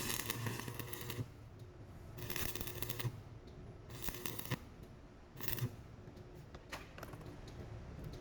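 Stick-welding arc crackling and sputtering in four short bursts, each under about a second, over a steady low hum.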